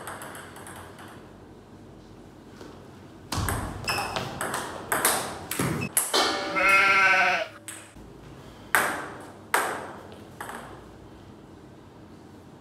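Table tennis ball clicking off paddles and the table in a quick rally, then a person's drawn-out, wavering cry lasting over a second, followed by a few more ball strikes.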